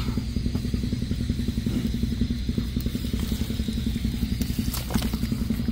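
An engine idling steadily, an even, rapid low pulsing, with a few light clicks and rattles near the end.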